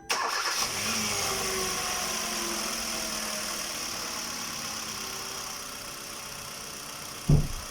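A Kia Rio's four-cylinder engine starts and runs at idle with its newly fitted serpentine belt turning, the pitch and loudness easing down over the first few seconds as the idle settles. A short loud thump comes near the end.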